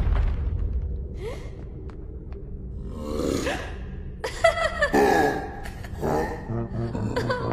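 Wordless cartoon character vocal sounds: a gasp and short exclaiming voice sounds, over the fading low rumble of a boom. Brass-like music comes in near the end.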